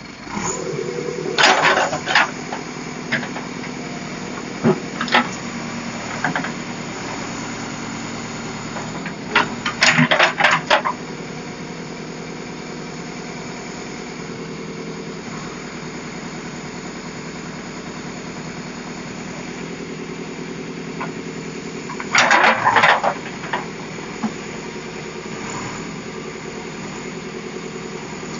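Backhoe loader's diesel engine running steadily while loading concrete culverts onto a truck, picking up sharply right at the start. Three short bursts of loud clattering knocks cut through it: near the start, about ten seconds in, and about twenty-two seconds in.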